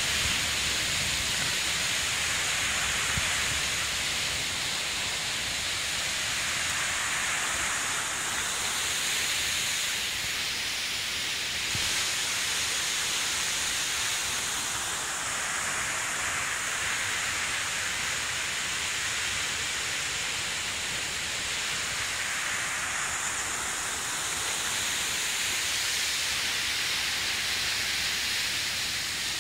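Mountain waterfall and its drifting spray making a steady, even rushing hiss.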